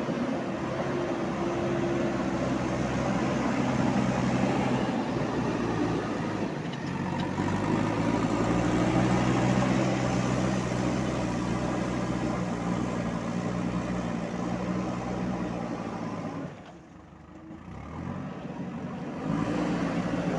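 Diesel engine of a JCB 3DX backhoe loader running under working load, its pitch shifting as the revs change. It drops much quieter for about two seconds near the end, then comes back.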